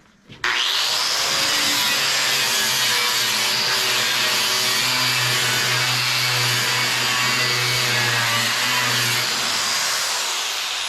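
Small angle grinder with a nylon-bristle abrasive brush, starting up and scuffing the surface of a truck tailgate to prep it for spray-on bedliner. It runs steadily for about nine seconds, then is switched off and winds down near the end.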